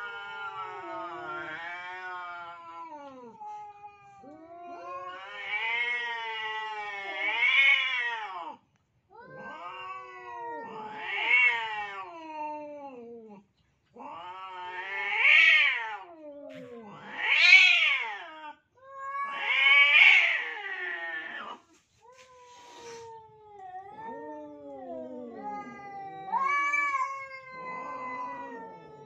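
Tomcats yowling at each other in a standoff: a string of long, drawn-out wails that rise and fall in pitch, some swelling much louder than others. It is the caterwauling of rival males contesting a single female.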